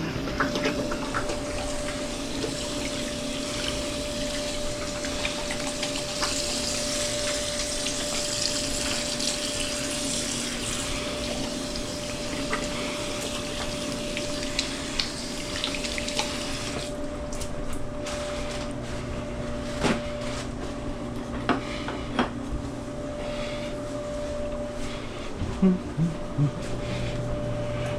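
Frigidaire electric clothes dryer running: a steady motor hum with rushing air. The hiss eases a little past halfway, and scattered clicks and knocks come in the second half.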